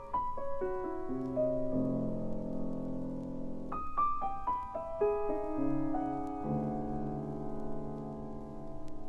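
Solo acoustic piano playing a slow contemporary classical piece. Twice, single notes step downward from the upper register and settle into low chords that are held and left to ring: the first time from near the start, the second about four seconds in.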